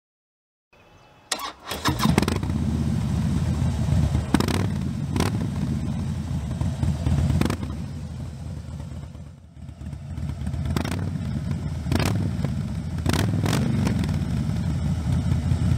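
Harley-Davidson Fat Boy's air-cooled 103-cubic-inch V-twin starting up about a second in and then running, a deep exhaust note with sharp cracks now and then. It dips briefly around the middle.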